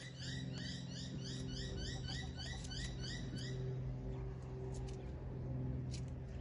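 Chicks peeping in a quick, regular series, about three to four peeps a second, which stops a little past halfway. Then faint scratchy clicks of soil as the chicks dust-bathe, over a steady low hum.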